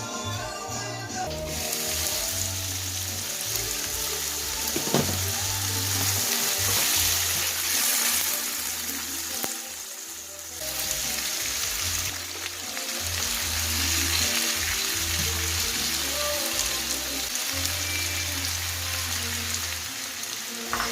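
Food sizzling as it fries in hot oil in a pan, starting about a second and a half in and dropping away briefly near the middle, with background music playing throughout.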